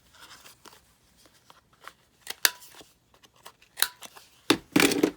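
Scissors snipping paper: sharp single cuts about two and a half and four seconds in, then a louder, longer rustle of cutting and paper handling near the end.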